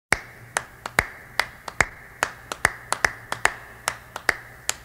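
Finger snaps keeping a steady beat, about two and a half strong snaps a second with lighter ones in between: the rhythm intro of a pop song's backing track, before the singing comes in.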